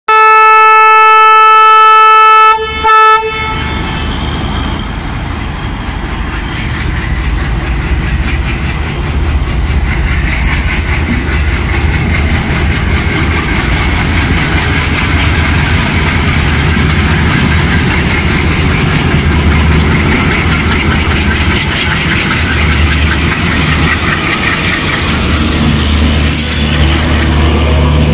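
A diesel locomotive horn gives one long blast, then a short toot. Then twin WDG3A locomotives' ALCO 251 diesel engines drone loudly as they pull the train away and pass close by. Near the end, the first coaches roll past with wheel and rail rumble.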